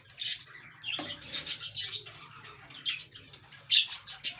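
Small cage birds chirping in short, high-pitched bursts, with a single knock about a second in.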